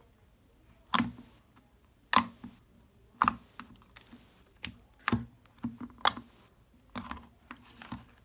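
Fingers pressing and squishing a bubbly slime in a plastic tub, giving sharp clicking pops, about one a second at uneven intervals, as air pockets in the slime burst.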